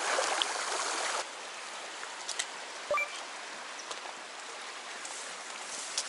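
Mountain stream water flowing over a shallow rocky bed, a steady rushing hiss that is louder for about the first second and then settles lower. A few faint short ticks come through on top.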